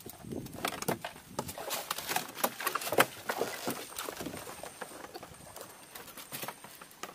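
Scattered light knocks and clicks of gear being handled in a wooden boat. They come thickly for the first few seconds, then thin out.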